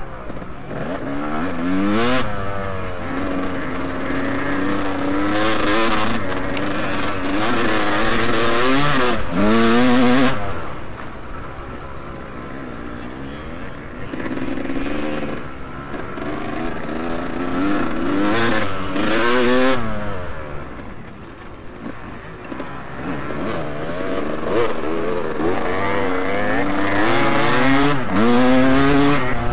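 Motocross motorcycles racing, more than one engine heard at once, repeatedly revving up through the gears and dropping back off the throttle. The revs climb highest about ten seconds in and again near the end.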